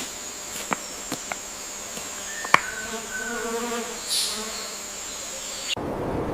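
Forest ambience with a steady high-pitched insect drone, scattered clicks and a faint call about three seconds in; near the end it cuts off abruptly to a different, noisier background.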